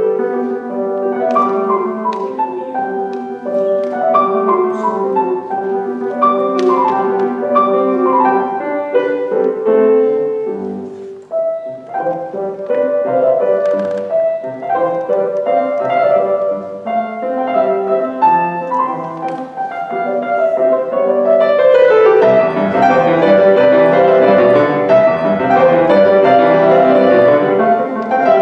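Grand piano playing classical music, with quick descending runs early on, a brief drop in loudness about eleven seconds in, and louder, fuller playing in the last third.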